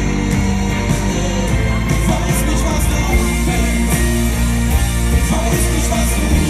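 Live pop-rock band playing loudly, with drums, a sustained bass line and singing over it.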